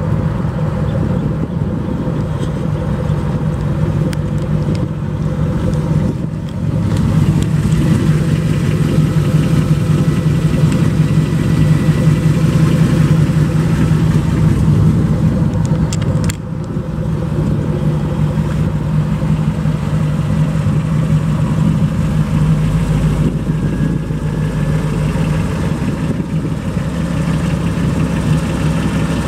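Mildly built Chevrolet 283 small-block V8 idling steadily.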